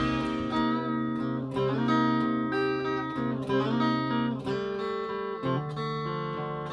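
Music: a guitar strumming chords that ring out, moving to a new chord about once a second.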